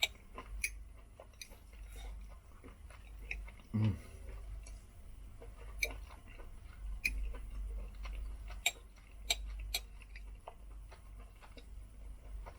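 A person chewing a mouthful of steak: scattered soft wet clicks and smacks of the mouth, with a brief low hum from the voice about four seconds in.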